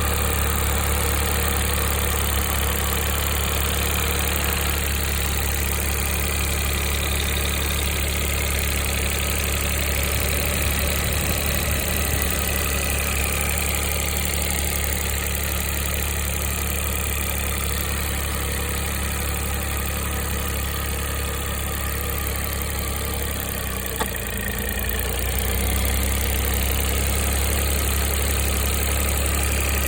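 Mitsubishi i three-cylinder 660 cc engine idling steadily, with a brief dip in its tone and a single click about 24 seconds in. This is the abnormal engine noise the owner describes as a rattle, which he traces to a failing air-conditioning compressor after a new auto-tensioner was fitted, together with a whirring that he says comes from inside the engine.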